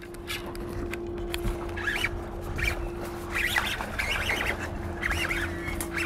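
Birds chattering in short bursts of calls every second or so, over a steady low hum and a low rumble.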